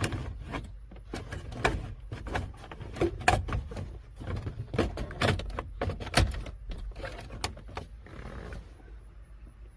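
Plastic dashboard trim panel being worked into place, with a run of irregular plastic clicks and knocks.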